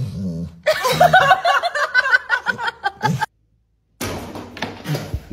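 A person laughing hard in quick high-pitched bursts for about two and a half seconds, cut off abruptly. After a brief silence, a quieter stretch of background noise with a low voice.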